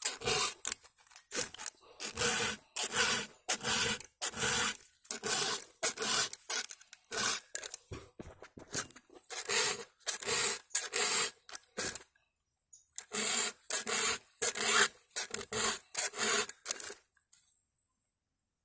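File rasping across the cutting teeth of a chainsaw chain, sharpening it in quick back-and-forth strokes, about two to three a second. The strokes pause briefly after about twelve seconds and stop near the end.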